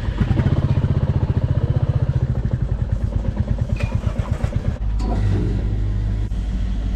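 Royal Enfield Classic 350's single-cylinder engine running at low revs with a fast, even pulse, which stops abruptly about five seconds in as the engine is switched off. A steady low hum goes on afterwards.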